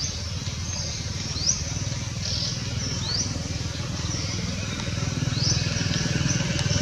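A steady low motor drone that grows a little louder near the end, with short, high, rising chirps repeating every second or so.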